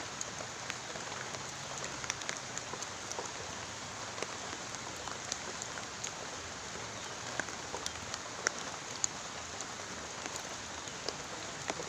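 Steady rain falling, a continuous hiss with many sharp ticks of individual drops landing close by at irregular intervals.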